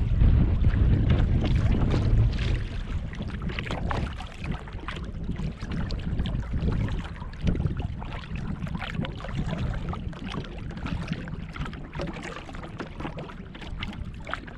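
River water rippling and splashing around a moving kayak, with many small splashes and drips. Wind rumbles on the microphone for the first two seconds or so, then dies away.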